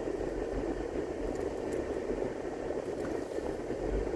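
Steady road and engine noise inside a moving car's cabin, a low even rumble with a few faint ticks.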